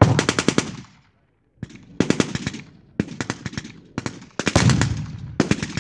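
Machine gun firing blanks in short bursts of rapid shots, about six bursts, with a brief gap about a second in.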